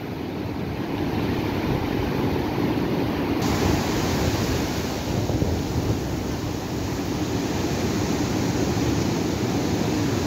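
Sea surf breaking and washing around rocks at the shoreline, a steady rushing wash, with wind rumbling on the microphone.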